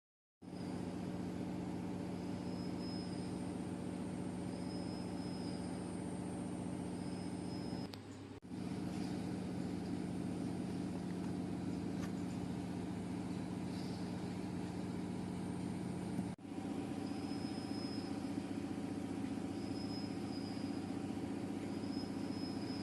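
Machinery running with a steady hum and a few steady tones, with short repeating high whistles; the sound drops out briefly twice.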